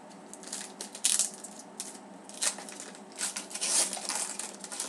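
Trading cards being handled, with a few short rubbing, sliding scrapes as cards slide against each other and their packaging.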